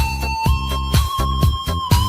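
Electronic dance music with a steady beat of about four beats a second and a held synth melody line.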